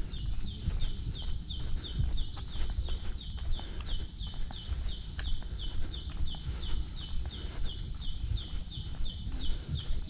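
A small animal's high, clipped chirp, repeated steadily about three times a second without a break, with a low rumble of wind or handling noise underneath.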